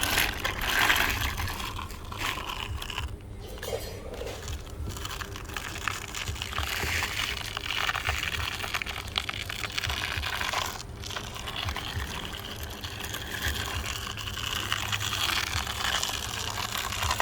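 Sand crunching and scraping as toy construction vehicles dig and push through it: a continuous gritty crackle over a steady low hum.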